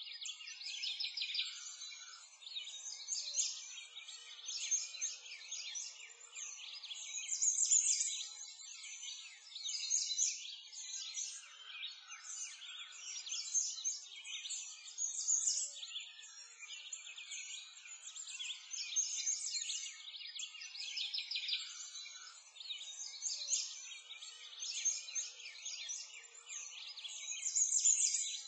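Dense chorus of small birds chirping, high and thin, swelling and fading every few seconds.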